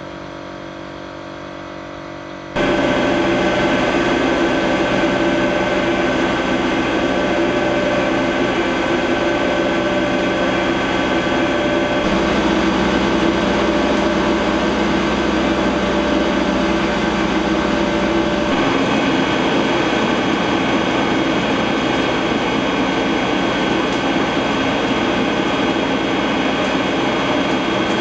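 Olive mill processing machinery running: a steady mechanical hum with a constant whine. It is quieter for the first couple of seconds, gets much louder about two and a half seconds in, and shifts slightly in tone twice later on.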